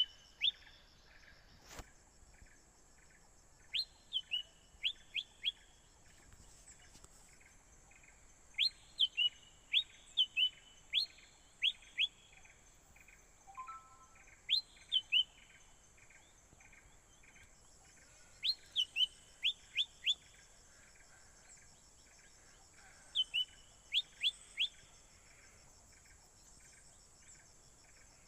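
A songbird calling in short bursts of three to seven quick, sharp notes, each sliding downward, with pauses of a few seconds between bursts. A steady high-pitched hum runs underneath throughout.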